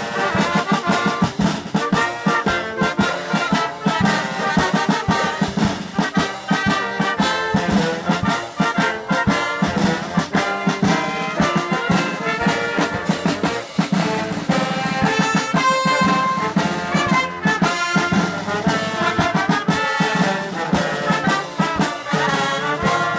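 Wind band playing live: trumpets, clarinet and saxophone over a steady drum beat.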